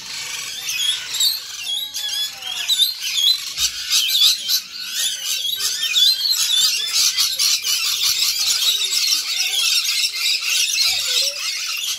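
A flock of rainbow lorikeets screeching and chattering, many shrill calls overlapping without a break; very noisy.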